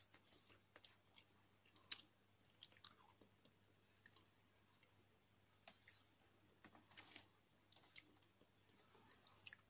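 Near silence, broken by faint scattered clicks and a few brief soft rustles, the clearest about two seconds in and about seven seconds in.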